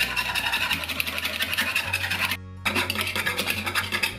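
Hand whisk beating cream in a ceramic bowl: fast, rhythmic scraping strokes against the bowl, with background music underneath. The sound drops out briefly about halfway through.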